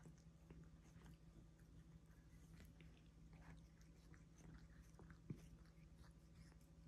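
Faint, quick licking and small tongue clicks of a cat grooming another cat's fur at close range, over a low steady hum, with one sharper click about five seconds in.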